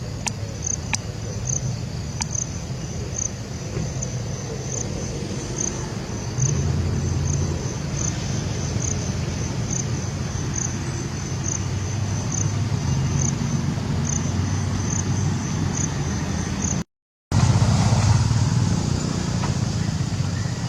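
A steady low engine-like rumble with a high chirp repeating evenly, about one and a half times a second. The sound drops out briefly near the end.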